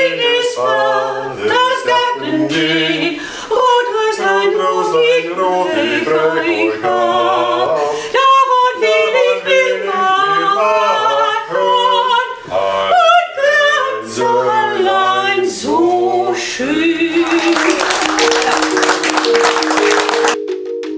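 Unaccompanied singing by a voice, held and gliding notes, for about sixteen seconds. Then a small audience applauds, and shortly before the end a music track with steady mallet-like notes comes in.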